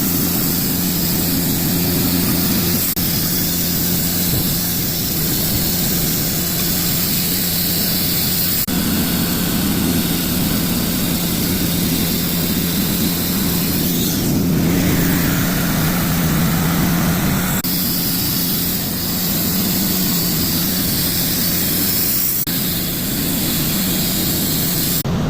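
Sawmill running while sawing logs: a steady engine drone under the noise of the saw, changing a little about 9 seconds in and again from about 14 to 17 seconds in.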